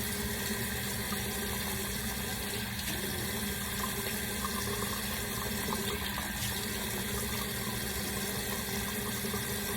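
Tap water running steadily as hair is wetted under it at a sink.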